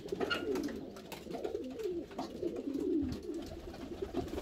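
Domestic pigeons cooing, several low coos overlapping, each one bending up and down in pitch.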